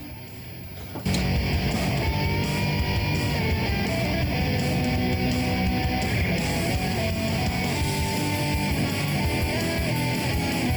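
Background rock music with electric guitar, starting abruptly about a second in.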